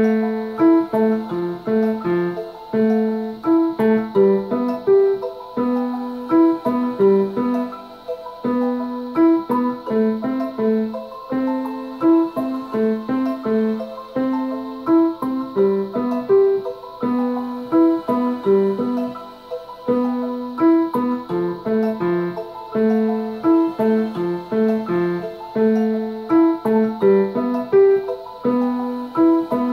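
Casio digital piano playing a repeating left-hand pattern of broken chords, built around an A minor chord from middle C, in steady even notes, along with the piece's original recording.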